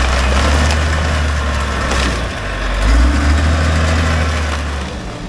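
Caterpillar 815 compactor's 3306 diesel engine running under load as its spiked steel wheels roll over and crush debris, with crunching and cracking that is loudest about two seconds in.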